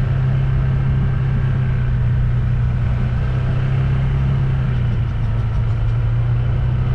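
Engine of a moving vehicle running steadily, a constant low hum over an even rush of travel noise.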